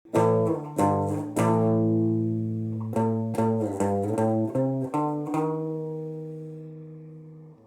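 Electric guitar played through a RAT-style distortion pedal into a transistor amplifier: a short riff of about ten picked notes and chords, the last chord left to ring and fade before it is muted near the end.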